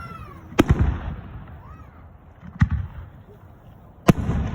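Aerial fireworks bursting: three sharp bangs about two seconds apart, each followed by a rumbling echo.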